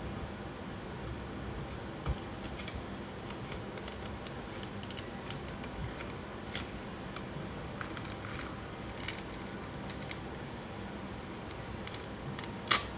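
Crinkling and crackling of a printed decal sheet and its clear carrier film being handled and peeled apart. It comes as scattered small clicks that grow busier in the second half, with one sharp crackle near the end.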